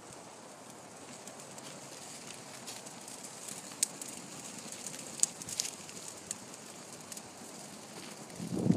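Faint outdoor background with a few sharp snaps and crackles of dry twig kindling being pushed into an earth pit and catching alight. Near the end a gust of wind hits the microphone with a loud rumble.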